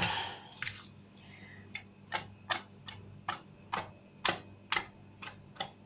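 Open tin of tuna being knocked against the rim of a salad bowl, a run of short sharp taps at about two a second, to shake out tuna that is stuck in the tin.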